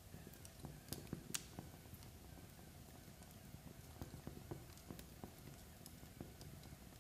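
Wood fire of burning logs and embers crackling softly, with irregular small pops and snaps over a low rumble; the sharpest snaps come about a second in.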